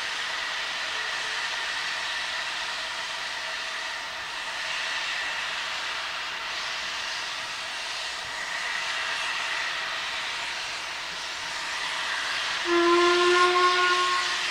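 LNER A3 Pacific 60103 Flying Scotsman moving slowly with a steady hiss of steam from its open cylinder drain cocks. Near the end a whistle sounds once on one steady note for about two seconds, the loudest sound.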